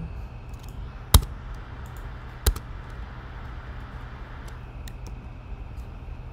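Keystrokes on a computer keyboard while editing code: two sharp, loud key clicks, the first about a second in and the second about a second and a half later, with fainter taps scattered around them, over a steady low hum.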